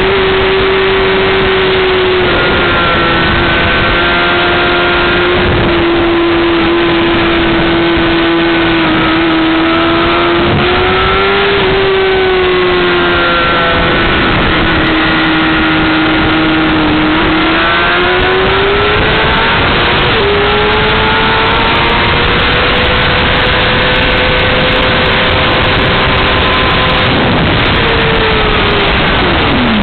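Honda CBR600RR inline-four sport bike engine at high revs on a race track. Its note climbs and falls as the rider accelerates, shifts and brakes through corners, with a sharp drop near the end. A loud rush of wind and road noise runs underneath.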